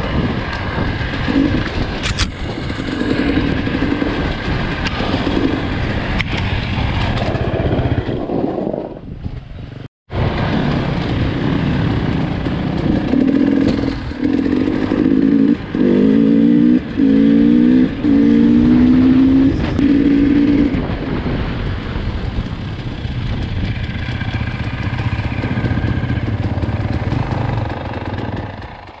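Enduro motorcycle engine running under load, its pitch climbing in several short steps in the second half as it accelerates. The sound cuts out sharply for a moment about ten seconds in.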